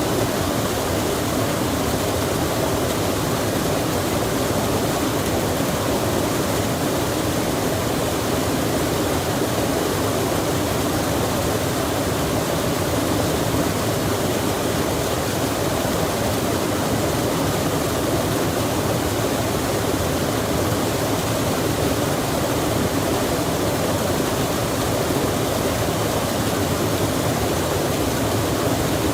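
Stream water rushing steadily, with rain falling, as one even, unbroken wash of noise.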